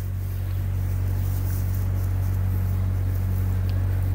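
A steady low mechanical hum, like an engine running at a constant speed, with no change in pitch or level.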